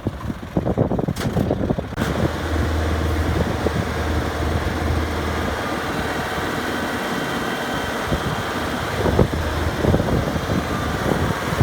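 Diesel engine of a heavy farm machine in a muddy paddy field, running steadily. About two seconds in, the sound fills out into an even, constant hum.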